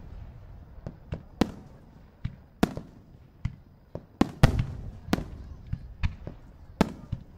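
Aerial fireworks shells bursting overhead: a quick, irregular series of about a dozen sharp bangs, each with a short echoing tail. The loudest bangs come a little past four seconds in.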